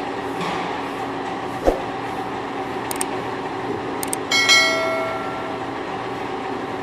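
Machine tool running steadily in a machine shop, a hum with several steady tones, with a sharp knock about two seconds in and a bright metallic ring near the middle that fades over about a second.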